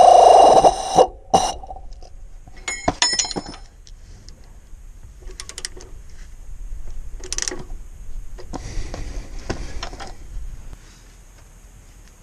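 Pneumatic air ratchet running with a loud, steady high whine on a front suspension nut, cutting off just under a second in. After it come scattered metallic clicks and a short ringing clink of hand tools on the steel parts, with quieter scraping and handling.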